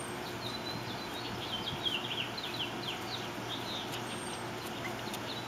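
Small songbirds chirping in the background: a run of quick, high chirps, many dropping in pitch, coming in clusters through the first four and a half seconds.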